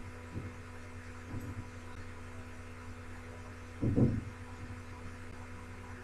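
Soft dull thuds of ragi dough kolukattai being set down on a damp cloth in an idli steamer plate, the loudest about four seconds in, over a steady low hum.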